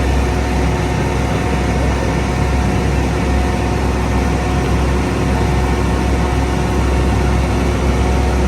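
Tour boat's engine running steadily, a loud even rumble with a faint steady whine over it.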